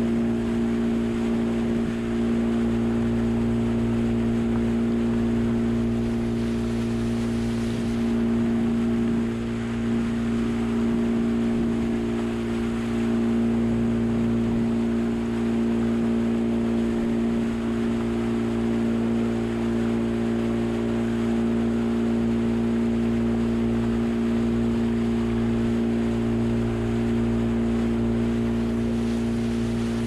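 Outboard motor of a small boat running at a steady cruising speed, a constant drone, with water rushing past the hull.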